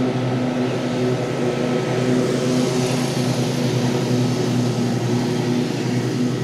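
A steady machine hum, with a slight swell of hiss about halfway through.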